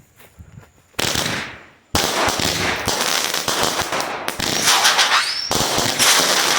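Phantom Fireworks Raging Rottweilers 200-gram cake firing. One shot goes off about a second in, then from about two seconds the shots run together in a rapid, almost continuous barrage, with short rising whines near the end. The uploader is pretty sure this means the cake was fast fused.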